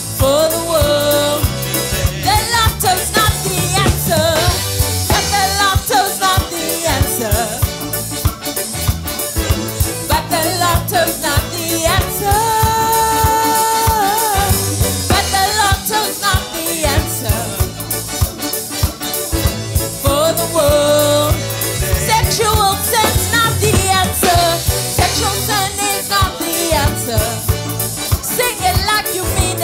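Gospel worship song with a sung melody over keyboard, bass and drums keeping a steady beat. There is one long held note about halfway through.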